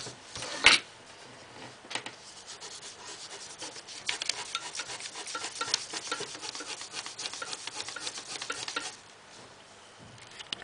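Pencil lead scribbling and shading rapidly on a sheet of paper, a fast run of scratchy back-and-forth strokes that stops about a second before the end. A sharp knock comes shortly after the start.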